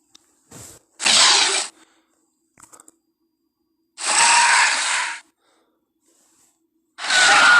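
Tyrannosaurus rex creature sound effects: three short, breathy hissing calls about three seconds apart, the last one longer with a faint whistling tone in it.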